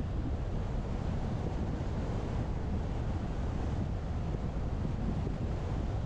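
Steady wind noise buffeting the microphone of a GoPro mounted on the roof of a moving Tesla Model X, mixed with low road and tyre rumble. There is no engine note; the car is electric.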